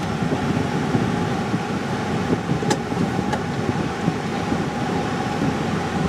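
Steady engine and road noise heard from inside a vehicle's cab as it drives slowly along a paved road. Two light clicks come about halfway through.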